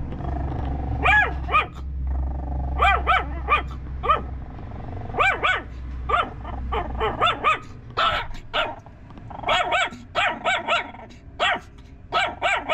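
A litter of young puppies yapping: many short, high-pitched barks, mostly in quick clusters of two or three. A low steady hum lies under the first half and fades out about seven seconds in.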